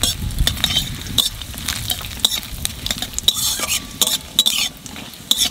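A metal spatula scraping and clinking irregularly against a metal kadai while stirring cumin seeds, a bay leaf and dried red chillies that sizzle in hot oil: whole spices being tempered at the start of the dish.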